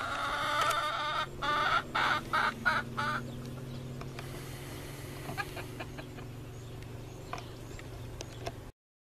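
Chickens calling loudly: one drawn-out call, then a run of short, choppy squawks over the first three seconds. A low steady hum continues beneath, and everything cuts off suddenly near the end.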